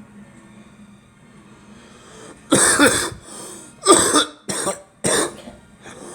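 A girl coughing: a fit of four coughs that starts about two and a half seconds in, the first one the longest.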